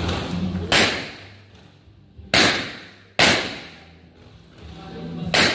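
Four pistol shots fired at an uneven pace, the second pair close together, each trailing off in an echo.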